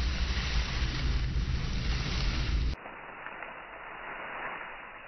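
Wind buffeting a phone microphone, a loud steady low rumble, cuts off abruptly about three seconds in and leaves a much quieter hiss with a faint rustle.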